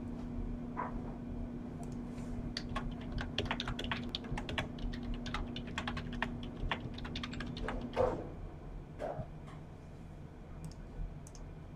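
Typing on a computer keyboard: a quick run of key clicks, over a faint steady hum that stops with a soft thump about eight seconds in.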